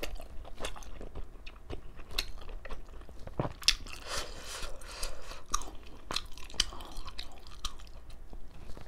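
Close-miked chewing of a mouthful of steamed chicken momo: irregular small clicks and smacks of the mouth.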